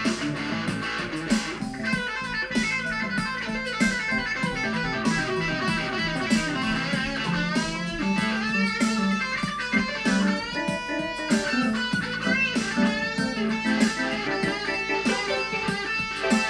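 Electric guitar and electronic keyboard jamming a 12-bar blues, with wavering, bent notes about halfway through.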